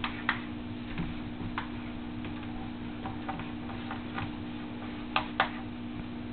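Dry-erase marker tapping and scraping on a whiteboard in short irregular strokes as ring structures are drawn, two sharper strokes close together about five seconds in. A steady low hum runs underneath.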